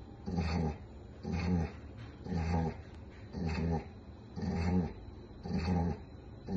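Golden retriever sick with a tick-borne disease, lying down and letting out a short pitched groan roughly once a second, with each groan as loud as the last.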